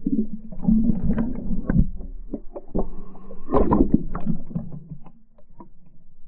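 Muffled underwater sound from an action camera held under the river's surface: water sloshing and bubbling, with many dull knocks against the camera's housing over a steady low hum. It grows quieter near the end.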